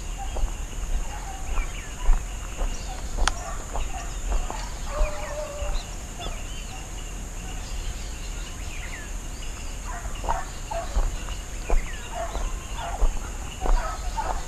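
Birds calling in many short chirps and clucks, over a steady high-pitched drone, with scattered sharp knocks and crackles.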